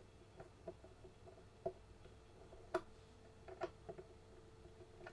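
Light, irregular clicks and taps of fingers working a small airline fitting into the side of an airsoft sniper rifle's receiver, threading it in by hand. One sharper click comes a little past halfway.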